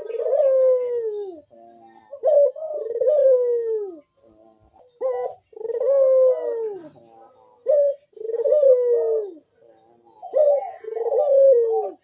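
Puter dove (domestic ringneck dove) giving its loud, deep 'bekur' coo over and over. There are about five drawn-out coos, each about a second long, starting with a short note and then sliding down in pitch.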